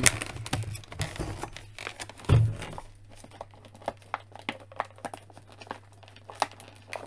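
Cardboard toy box and plastic packaging being handled and cut with scissors to free parts from the box: scattered crinkles and clicks, with one louder thump about two and a half seconds in.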